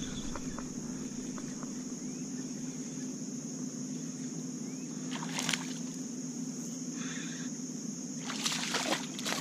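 Calm-lake ambience from a fishing kayak: a steady high insect drone with a low hum beneath it. A brief splashy swish comes about five seconds in, and a longer stretch of splashing and handling comes near the end as a fish is hooked.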